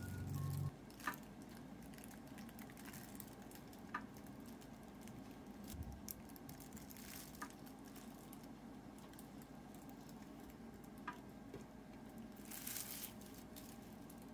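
Water simmering faintly in a wide pan for poaching eggs, with a few light clicks spaced a few seconds apart and a brief louder rush of noise near the end.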